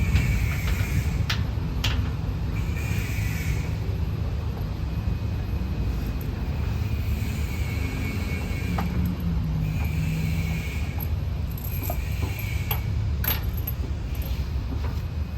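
A truck engine running steadily with a low rumble, a faint high whine coming and going and a few sharp metallic clicks.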